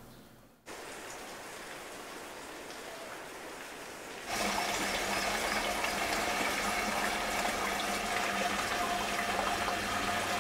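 Spring water welling up and bubbling into a concrete tank: a steady rush of water, louder from about four seconds in, with a faint steady hum under it.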